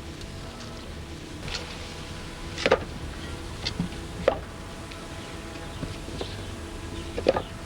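Wood knocking on wood: a handful of short, sharp knocks, three of them louder and spaced a second or more apart, as split wooden blanks are handled and stacked. A faint steady hum lies underneath.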